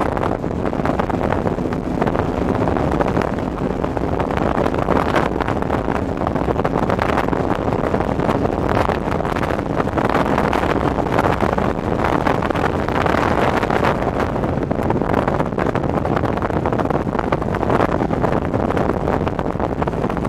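Motorcycle riding at highway speed: steady wind rushing over the microphone, over the hum of the engine and tyres on the road.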